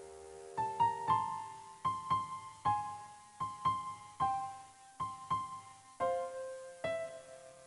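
Gentle background piano music, single notes played at an easy pace with chords underneath.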